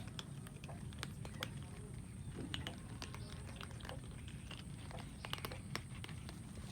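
Cats chewing and crunching food, a run of irregular short clicks over a steady low background rumble.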